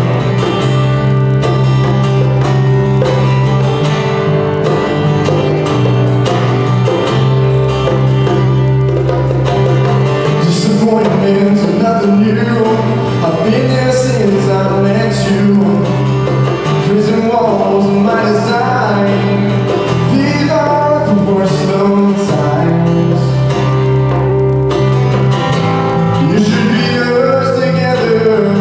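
A small live band playing a worship song, with acoustic guitar, bass guitar and bongos, and a young man singing over it, mostly in the second half.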